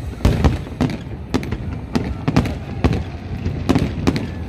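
Fireworks going off in a rapid, irregular string of sharp bangs, about three a second, over a continuous low rumble.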